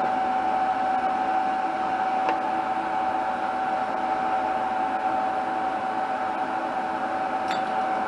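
Steady machine hum with a strong single held tone, unchanged throughout, with a faint click about two seconds in and another near the end.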